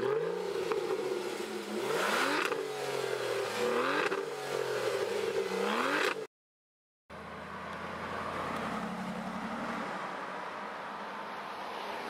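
Car engine revving in quick rising sweeps about every two seconds, cutting off suddenly about six seconds in. After a short gap, a quieter, steadier engine and road noise follows.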